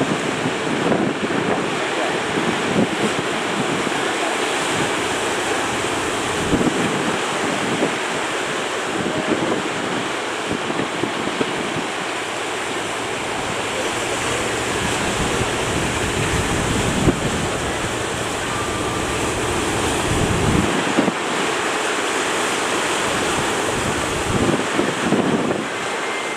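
Ocean surf breaking at a river mouth, a continuous roar of waves, with strong wind buffeting the microphone in low rumbling gusts.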